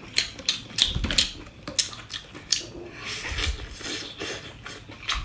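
Close-miked eating sounds: irregular crisp clicks and crackles of biting into and chewing a fried chicken cutlet, with a few dull thumps.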